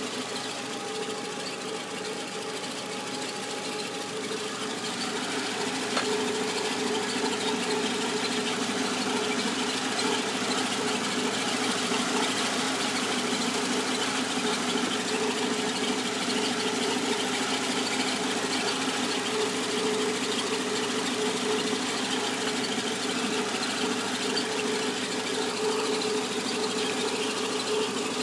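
Peugeot 206 engine running steadily with a strange mechanical noise that was traced to the clutch and cured by replacing the clutch kit. It gets louder about six seconds in, then holds steady.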